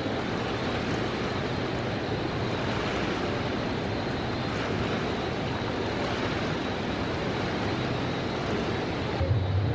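Steady rushing noise of a large indoor swimming pool hall, from the air handling and the moving water. Near the end it gives way to a lower hum.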